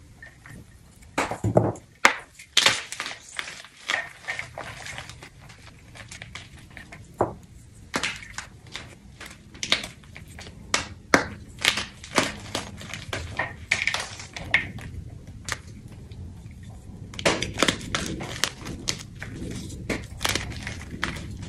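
Blocks of wet gym chalk crushed and squeezed in the hands: a run of irregular crunches and crumbling, with chalk pieces and drips falling into a bowl of water.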